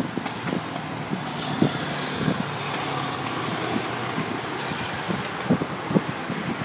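Steady road traffic as cars pass along a multi-lane city road, with tyre and engine noise swelling as a car goes by. A few short low thumps come and go.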